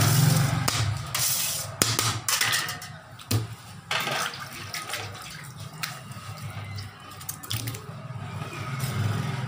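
Wet handling of a plucked broiler chicken carcass on a wet stone counter: wet slaps, drips and scattered knocks and clicks, busiest in the first few seconds, over a steady low hum.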